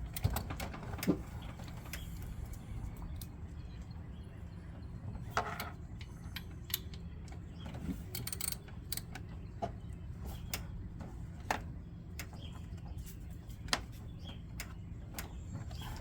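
Scattered metallic clicks and clinks of a socket wrench and hand tools being fitted and worked on a truck's belt tensioner, over a steady low background hum.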